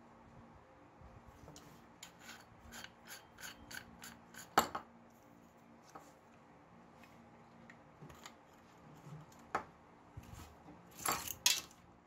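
Small parts of a lamp socket being handled and pulled apart: a run of light scraping clicks, about two or three a second, then a sharper click about four and a half seconds in, a few scattered clicks, and louder scrapes near the end.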